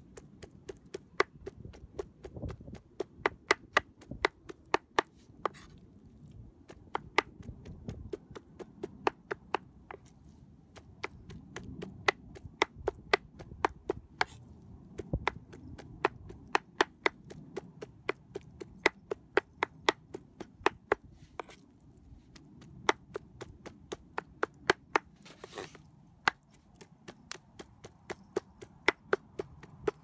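A heavy cleaver chopping and mincing raw meat on a wooden cutting board: a run of sharp knocks, about two to three a second, broken by a few short pauses.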